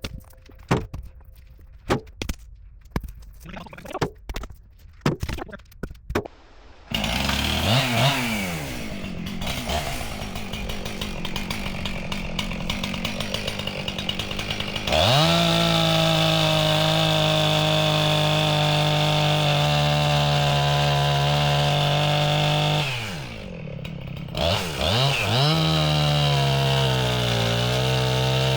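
Scattered sharp clicks and knocks, then a Husqvarna 262XP two-stroke chainsaw starts and idles. About halfway through it revs to full throttle and holds steady. It eases off briefly, then revs again, its pitch sagging as the chain bites into wood.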